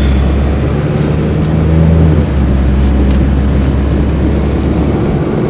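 A car running, heard as a loud, steady low rumble with a faint engine tone in the first couple of seconds. It starts and cuts off abruptly.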